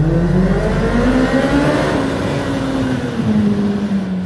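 Yamaha FJR1300's inline-four through a Delkevic slip-on exhaust, revved hard inside a tunnel: the pitch climbs for about two seconds, then falls away as the throttle closes.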